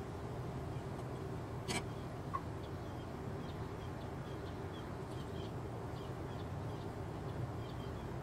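Quiet background: a steady low rumble with faint, scattered high chirps, and a single sharp click nearly two seconds in.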